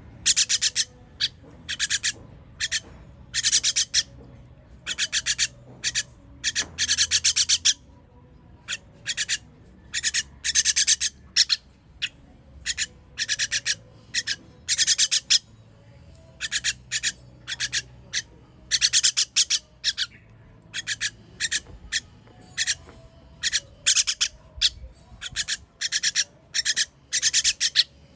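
Nestling birds giving harsh, raspy begging calls while being fed: many short and some longer rasping bursts, repeating irregularly.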